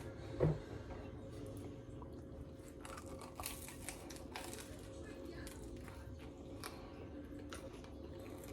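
Close-up eating sounds of a bacon, egg and cheese muffin being bitten and chewed: one loud bite about half a second in, then scattered crackly chewing, crispy bacon crunching between the teeth.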